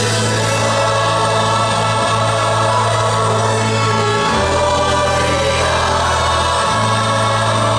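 Choir singing a Christmas gospel piece with orchestral accompaniment: full, sustained chords over a held bass note that shifts twice.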